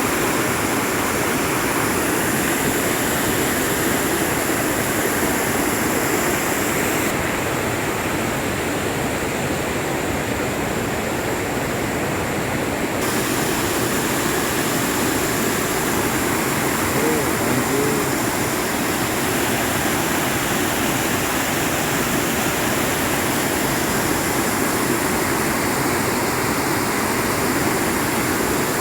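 A river swollen with floodwater after heavy rain, rushing steadily.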